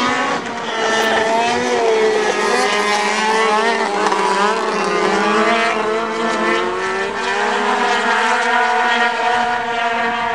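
A pack of racing snowmobiles with two-stroke engines running hard at high revs, several engine notes overlapping and rising and falling in pitch as the sleds throttle through the corners and onto the straight.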